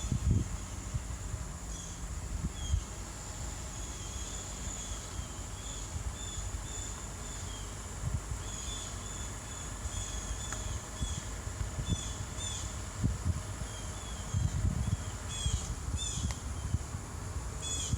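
Outdoor ambience: short high chirps repeating in quick clusters throughout, over low rumbling with a few dull bumps.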